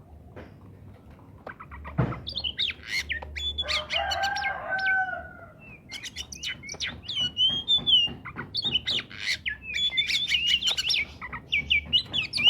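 Oriental magpie-robin (kacer) singing in full, energetic song: a fast, varied run of sharp whistles, sweeping notes and chirps that starts about two seconds in after a quieter opening, with a short thump as it begins.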